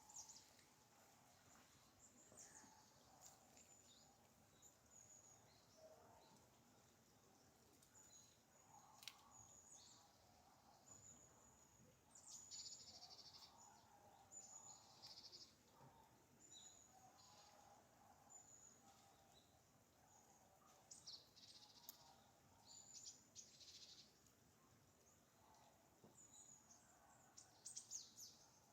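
Faint wild birdsong: scattered short, high chirps and trills from several birds, with some lower warbled notes, over a faint steady background hiss.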